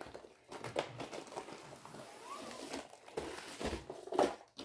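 Plastic-wrapped rolled canvas crinkling and rustling as it is slid out of a cardboard tube box, with a louder knock near the end.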